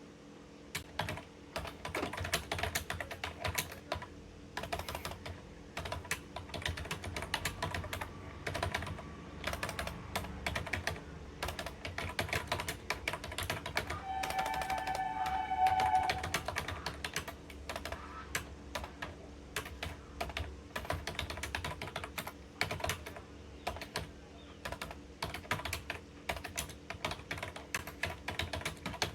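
Fast, continuous typing on a computer keyboard, with keystrokes clattering in an uneven stream. A brief pitched tone sounds behind the typing about halfway through.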